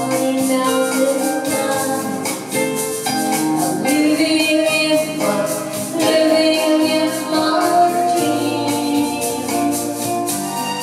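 Live pop music: an electronic keyboard plays a dance-pop accompaniment over a steady programmed drum beat, with a woman singing into a microphone.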